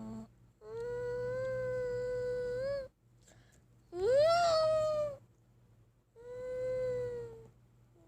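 Brachiosaurus sound effect: three long, pitched, cry-like calls. The first is held steady for about two seconds and rises slightly at its end, the second and loudest sweeps up sharply and then eases down, and the third is held steady and dips at its close.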